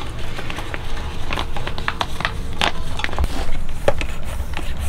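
Irregular clicks and crackling handling noise from working on a tubeless gravel bike tyre as sealant is added, over a steady low rumble.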